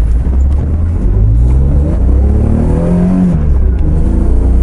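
A 2001 BMW 330Ci's 3.0-litre straight-six, breathing through new long-tube headers and a stainless exhaust into a Magnaflow muffler, heard from inside the cabin while accelerating hard. The revs climb for a couple of seconds, dip about three and a half seconds in, then climb again.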